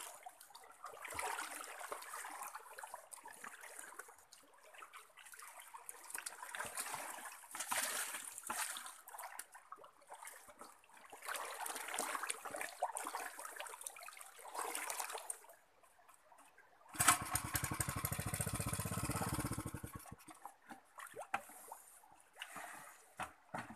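Water trickling and splashing over mud. About seventeen seconds in, a small engine runs with a rapid, even pulsing for about three seconds, then stops.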